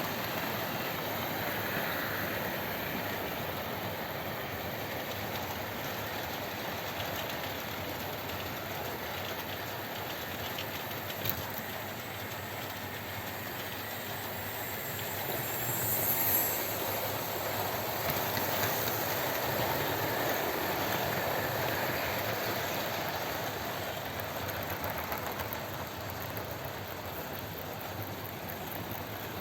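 Model trains running on the layout's track: a steady electric motor whir and wheel rumble on the rails, with one sharp click about eleven seconds in and a brief swell in loudness around sixteen seconds.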